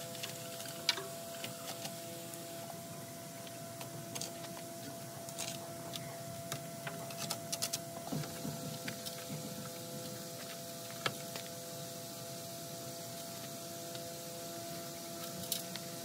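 Scattered small clicks, taps and scrapes of hands working on the cabin's interior, over a faint steady hum.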